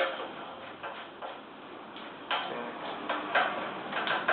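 Irregular light metallic clicks and knocks of tools and metal fittings being handled while unscrewing the main air line from a two-piston air compressor, with a somewhat louder knock about two seconds in.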